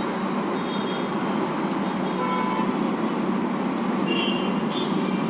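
Steady background noise, even and unbroken, with a couple of faint, brief tones: one about two seconds in and a higher one about four seconds in.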